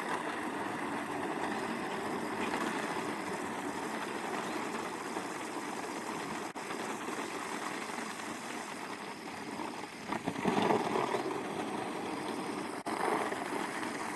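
An engine running steadily, with a louder swell about ten seconds in.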